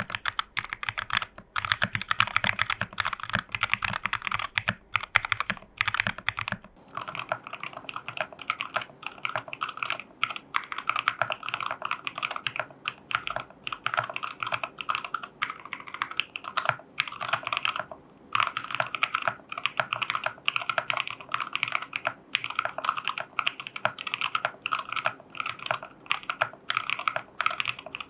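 Continuous fast typing on a TU40 plastic-case 40% mechanical keyboard, built plateless with case foam, PCB foam and tape mod, with Jwick Nylon switches and XMI Cyrillic keycaps: a dense run of key clacks with a couple of brief pauses. About seven seconds in, the clacks turn duller as their brightest high end drops away.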